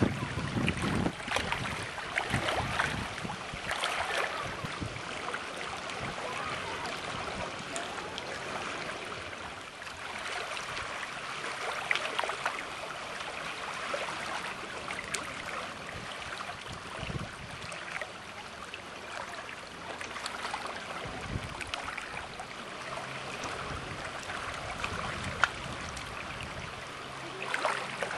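Water splashing and rushing, as from a boat moving through choppy water, with occasional small slaps. It is a little louder in the first few seconds and then steadier.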